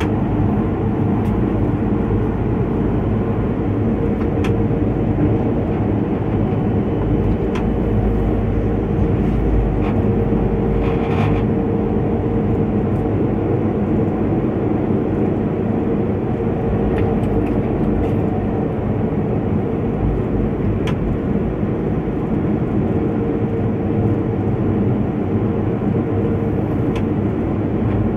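Steady running noise in the cab of a DB class 111 electric locomotive under way: a dense rumble of wheels on the rails with a steady hum, and a few brief faint ticks.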